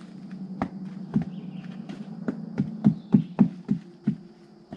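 Footsteps of people walking on the trail, about two to three steps a second, loudest in the middle.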